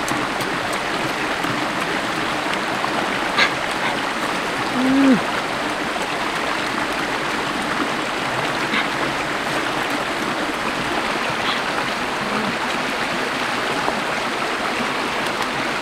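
Shallow rocky stream running steadily over stones. About five seconds in there is a short low vocal sound, and there is a faint click a little before it.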